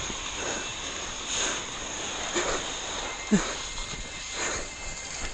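Mountain bike riding down a snow slope: a steady rush of wind and snow, with short scraping sweeps that fall in pitch roughly once a second as the tyres slide through the snow.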